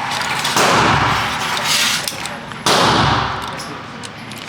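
Two gunshots about two seconds apart in an indoor shooting range, each a sharp crack followed by a long echoing ring-out off the range walls.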